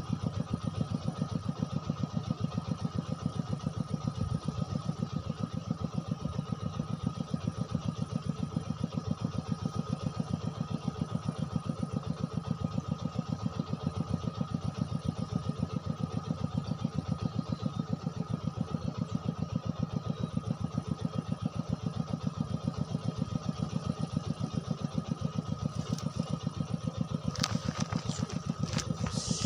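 A small engine running steadily at idle, with a fast, even beat and a thin steady whine above it. A few short clicks come near the end.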